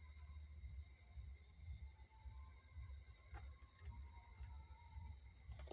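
Steady high-pitched chorus of crickets over a low hum.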